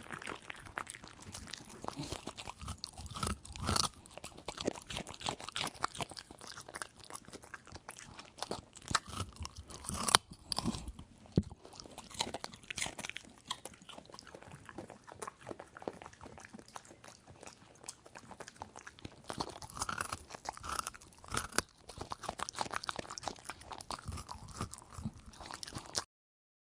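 A dog eating: quick, irregular crunching and chewing of dry food, with a few louder bites, stopping abruptly near the end.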